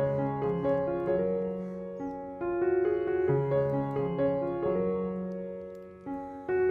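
Background piano music: a gentle melody of single notes over sustained lower notes, each note struck and fading away.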